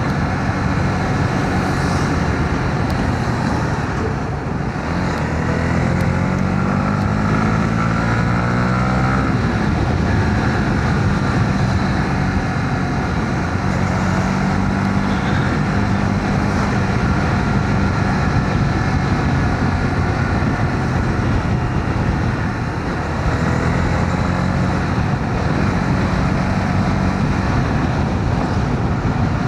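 Honda CB125R single-cylinder motorcycle engine running on the move in traffic, with wind and road noise. The engine note rises once, about six to nine seconds in, as it picks up speed.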